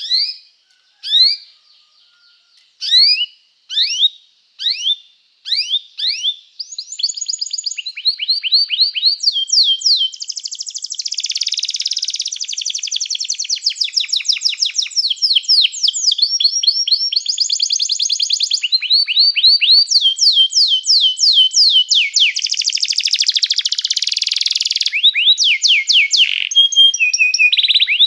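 Domestic canary singing: a few separate, quick rising chirps, then from about seven seconds in a continuous song of fast high trills and rolls, switching to a new trill every second or two.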